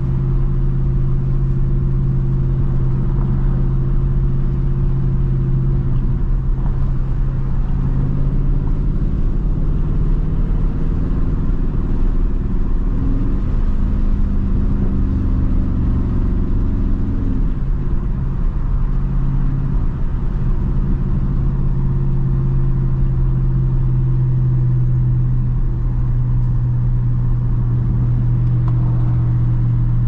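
Dodge Charger Daytona 392's 6.4-litre HEMI V8 cruising at light throttle, heard from inside the cabin as a steady low drone over road noise. Its note shifts in pitch for several seconds in the middle as the speed changes, then settles back to a steady drone.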